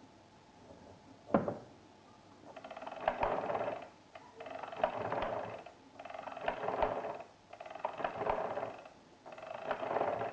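Arithmometer mechanical calculator being worked: a single sharp click about a second in, then the crank turned five times, each turn a clattering run of gear clicks lasting about a second.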